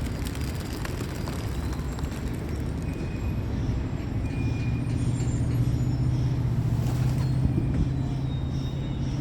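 A large vehicle's engine running with a steady low hum that grows louder about four seconds in, over a background rumble of traffic.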